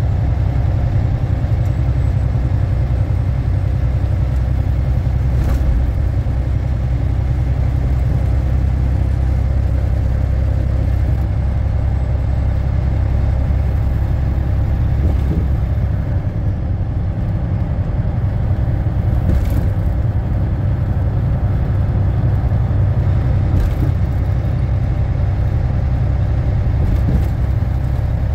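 Volvo VNL780 semi truck's diesel engine and road noise, heard from inside the cab while cruising at steady speed: a steady low rumble with a few faint ticks.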